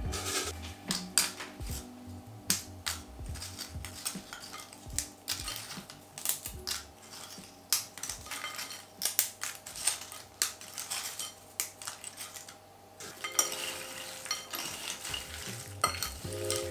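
Dried plantain chips, nuts and dried fruit handled in a glass bowl: irregular light crackling clicks as the crisp chips are moved about, then a spoon stirring the trail mix near the end, clinking against the glass.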